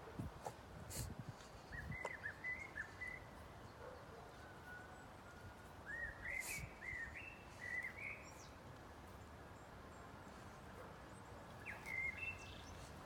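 Faint bird chirps in short clusters of a few rising and falling notes, about two seconds in, again around six to eight seconds in and near the end, over a steady outdoor background hiss.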